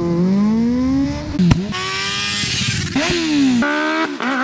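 Aprilia RSV4's V4 engine through an Austin Racing GP1R slip-on exhaust, revving hard. The pitch climbs steadily for the first second and a half, breaks off sharply, then falls and climbs again, with further abrupt jumps in pitch near the end.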